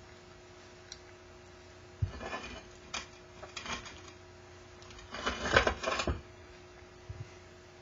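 Handling noise as a ceramic bowl is picked up and turned in gloved hands: a few light knocks and scrapes against the wooden tray, then a louder stretch of rubbing and clatter about five seconds in, over a faint steady hum.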